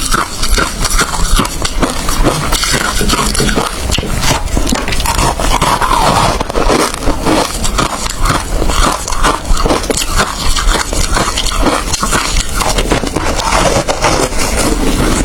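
Ice being crunched between the teeth: a dense, irregular run of sharp cracks and crunches as the ice breaks up while chewed.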